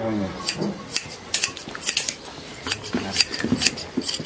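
Hand blade sheep shears snipping through a sheep's fleece: sharp metallic snips of the blades closing, about two or three a second, unevenly spaced.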